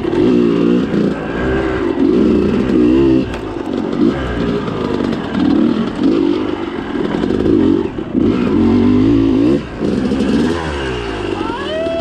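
Yamaha YZ250 two-stroke dirt bike engine being ridden hard, its revs climbing and dropping again and again with throttle and gear changes; near the end the revs fall away.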